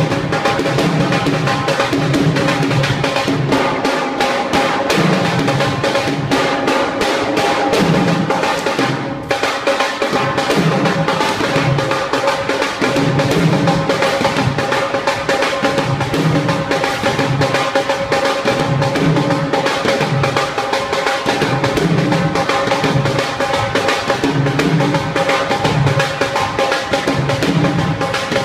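Dhol drum played with sticks in a driving bhangra rhythm: quick, sharp treble-side strokes over deep bass-side thumps about once a second. The drumming drops out briefly about nine seconds in, then carries on.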